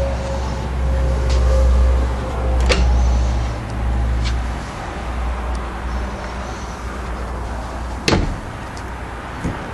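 A low, steady rumble with two sharp clicks or knocks, one about a third of the way in and one near the end, and a few fainter ticks between.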